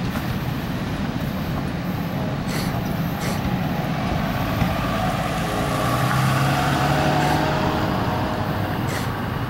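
Freight cars of a passing mixed freight train rolling by: a steady rumble of steel wheels on the rails, with a few sharp clicks and faint squealing tones, a little louder just past the middle.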